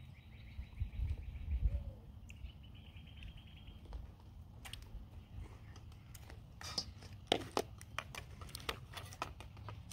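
Steamed lobster being eaten and picked apart by hand: quiet chewing, then a scattering of sharp little clicks and cracks of shell in the second half.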